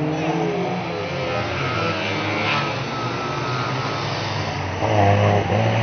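Banger racing cars' engines revving as the cars drive round a bend of the track, the engine notes rising and falling; louder near the end as a car comes close.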